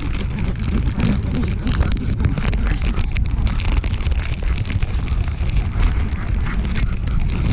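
Wind buffeting the microphone: a steady low rumble with scattered crackles.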